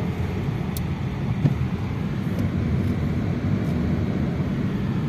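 Steady road and engine noise from inside a moving car's cabin, low and even, with one brief knock about a second and a half in.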